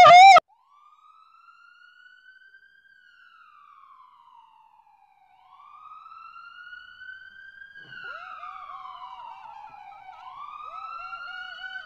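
A loud voice cuts off just after the start. Then a siren wails, its pitch sweeping slowly up and down in long rises and falls and growing louder. About eight seconds in, a second, lower siren tone with quick repeated dips joins it.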